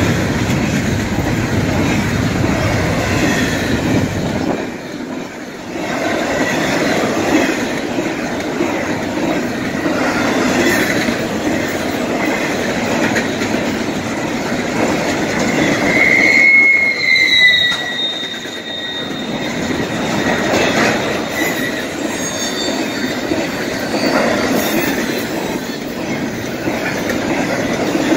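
Double-stack intermodal freight train of container well cars rolling past, a steady rumble and clatter of steel wheels on rail. About halfway through a wheel squeal starts, a high tone that lingers for several seconds.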